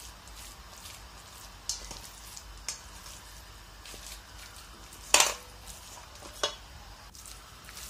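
A spatula scraping and stirring crumbled tofu, corned beef and grated carrot in a stainless steel bowl, mashing the tofu, with a few knocks of the spatula against the bowl, the loudest about five seconds in.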